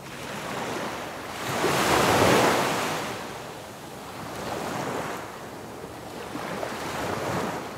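Ocean surf breaking on a sandy beach: a steady wash of waves that swells three times, loudest about two seconds in.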